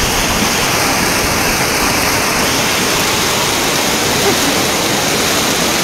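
Fast-flowing muddy floodwater rushing down a street as a torrent, a loud, steady rush.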